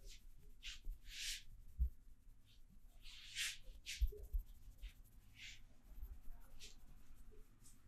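Hands rubbing and scratching against hair and skin in short, irregular strokes during a head massage, with a few soft low thuds.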